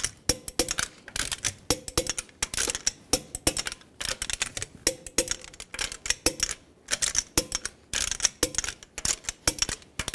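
Torque wrench ratcheting on wheel lug nuts: short runs of rapid metallic clicks, repeated one nut after another, as the nuts are tightened to 76 foot-pounds.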